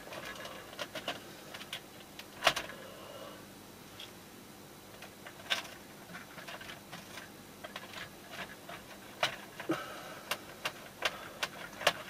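Scattered small clicks and knocks of hands working on an opened DJ controller during disassembly: screws coming out and the circuit board and metal frame being handled. A few sharper knocks stand out, and a run of small ticks comes near the end.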